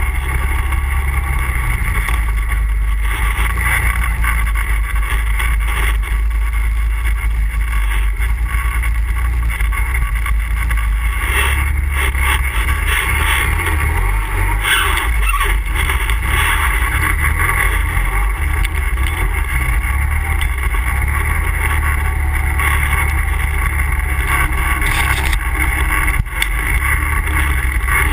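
ATV engine running steadily during a ride, with a heavy low rumble and no breaks.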